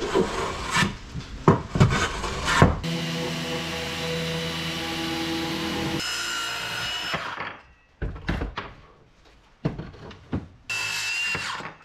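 Knocks and scraping as a glued hardwood slatted frame is worked by hand, then a random orbital sander runs steadily on the wood for about four seconds and winds down. A few separate wooden knocks follow as the frame is handled, and the sander runs briefly again near the end.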